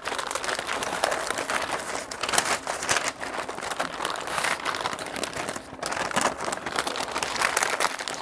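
Butcher paper crinkling and rustling as a beef roast is folded and wrapped tightly in it, in uneven scrunches that come and go.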